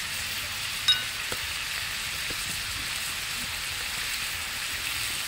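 Pork intestine pieces sizzling in oil in a wok, a steady hiss, with one short, sharp clink about a second in.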